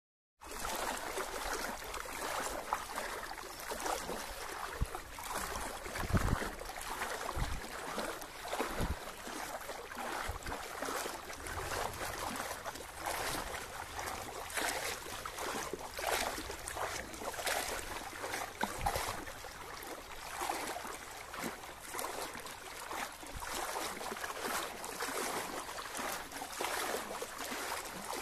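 Floodwater splashing and sloshing, pushed through at slow speed, with irregular louder splashes; it starts abruptly just after the opening.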